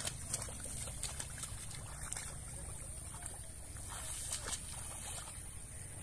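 Footsteps wading through shallow water in a flooded rice paddy: irregular small splashes and trickling as the feet lift and drop.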